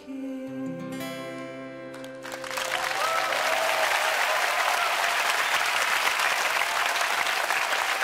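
The song's last chord, held notes on the accompanying instruments, rings out for about two seconds; then a studio audience starts clapping and the applause continues steadily.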